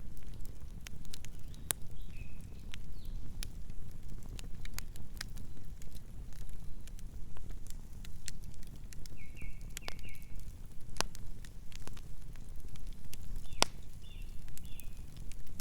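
Campfire burning, with frequent sharp crackles and pops over a steady low rumble of the flames. A few brief, high whistling tones come and go.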